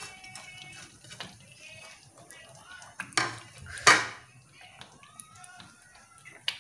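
Two sharp metal clinks of a steel plate knocking against a cooking pan, about three and four seconds in, the second louder; faint rustling and handling around them.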